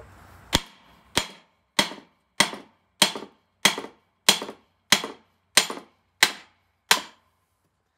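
Eleven hammer blows in a steady rhythm, about one and a half a second, on the end of a Polaris ProStar 570 crankshaft. Each sharp strike rings briefly. The blows are driving the pressed-in crankshaft out of its bearings in the engine case half.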